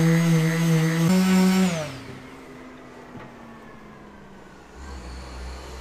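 Electric palm sander with 180-grit paper running on body filler on a car door panel. Its motor whine steps up slightly in pitch about a second in, then winds down as it is switched off. A quieter stretch of faint rubbing follows as the panel is wiped with a cloth.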